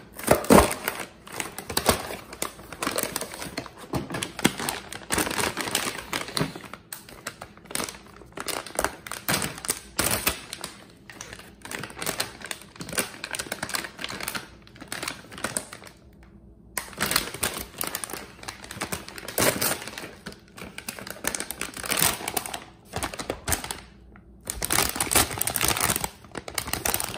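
Foil-lined plastic Pedigree Dentastix bag crinkling and crackling as hands work it open, with a couple of short pauses.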